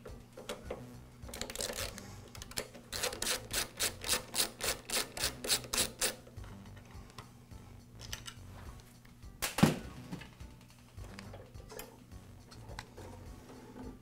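A screwdriver working the screws out of a Briggs & Stratton mower engine's plastic primer base and air-filter housing: a run of quick, even clicks, about five a second, lasting a few seconds, then one sharp knock of plastic about two-thirds of the way through as the part is worked loose.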